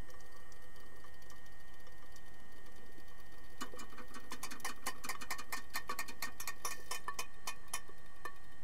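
Underwater hockey sticks clacking against the puck and the pool floor in a scrum, heard underwater. A dense run of sharp clicks starts about three and a half seconds in and thins out near the end, over a steady background hum.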